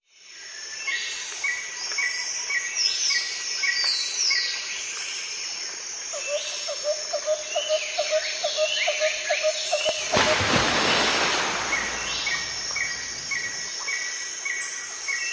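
Birds calling outdoors: runs of short repeated chirps and falling whistles over a steady background hiss, and for a few seconds a lower note repeated about four times a second. Partway through, a rush of noise lasting about two seconds covers the calls.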